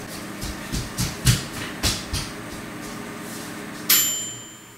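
A handful of light knocks, then a sharp metallic clink about four seconds in that rings briefly.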